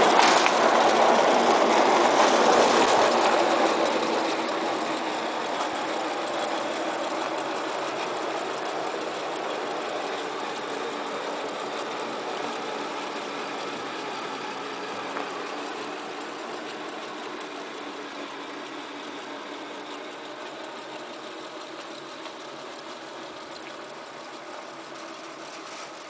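Ride-on miniature railway train running on its rails with a steady hum, loudest as it passes close at the start, then fading steadily as it draws away.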